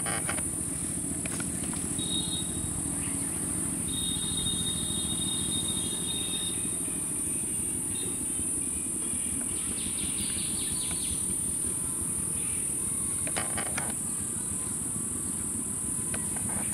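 Steady high-pitched insect drone over a low outdoor rumble. Brief thin calls come a couple of seconds in and again a few seconds later, and a few soft rustling clicks follow later on.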